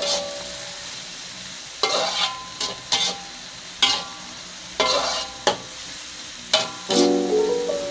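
Stir-frying long beans in a wok: a metal spatula scraping and clanking against the pan about eight times at uneven intervals, over a steady sizzle of the vegetables in hot oil.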